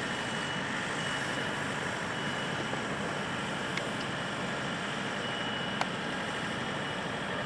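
Steady running noise of a car, with a faint high beep that comes and goes. Two light clicks, about four and six seconds in.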